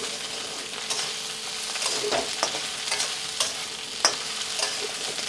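Dried Bombay duck (bombil) pieces sizzling in hot oil in a kadhai, being fried on high flame until crisp. A spatula scrapes and turns them against the pan about eight times, at irregular intervals.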